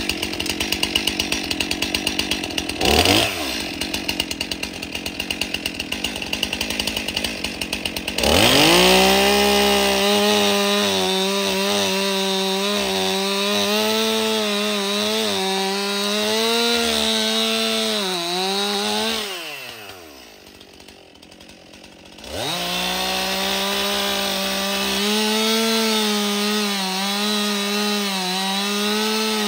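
Stihl two-stroke chainsaw idling with a rapid pulsing beat and a quick throttle blip about 3 s in, then run up to full throttle about 8 s in. Its pitch wavers as it cuts wood, it drops off near 20 s, and it revs back up a couple of seconds later.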